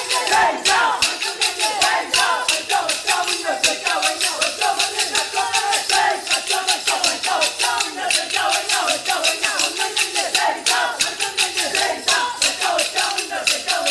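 Kolkali stick dance: the dancers' short wooden sticks clack together in a fast, even rhythm, several strikes a second, under voices singing the accompanying song.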